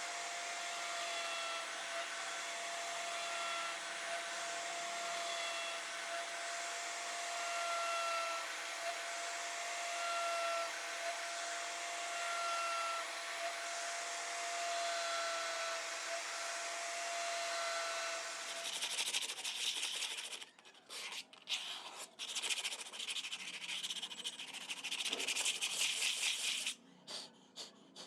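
CNC router carving an MDF board: a steady whine with a dense cutting hiss. About two-thirds of the way in, the whine stops and the sound turns to irregular rasping bursts with short gaps.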